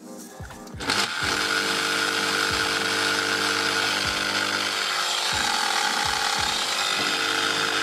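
Makita corded drill, fitted with new carbon brushes, switched on about a second in and running at a steady speed with a constant whine. It runs but has no power, which the owner puts down to a motor winding that has most likely burnt out.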